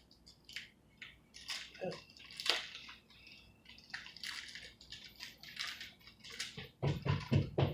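Plastic candy wrapper crinkling and tearing as it is opened by hand, in irregular crackly bursts, with a few dull knocks from handling near the end.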